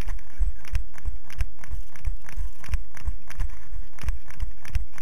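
Running footfalls on pavement, heard through a body-worn action camera that jolts with each stride: an even thud about three times a second, each with a light click.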